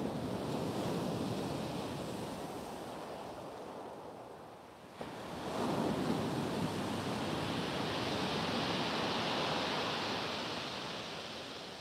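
Sea waves breaking on a shingle beach, in two swells: one fades out, then another surges in suddenly about five seconds in. A long hiss of foaming water washing over the pebbles follows.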